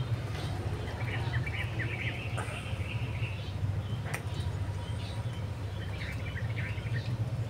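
Small birds chirping now and then over a steady low hum.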